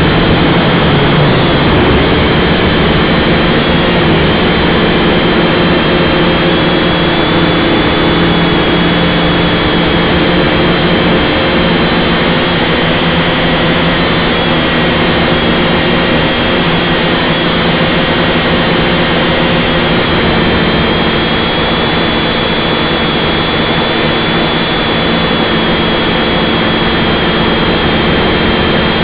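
Syma X5C quadcopter's four small brushed motors and propellers whining steadily in flight, loud and close, with a high-pitched whine over a buzzing hum whose pitch wavers slightly.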